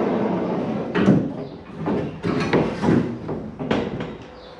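Sliding storage rack built into a pickup truck topper being pulled out on its bearings and swung down: a run of sliding scrapes, rattles and knocks, the sharpest knock about a second in.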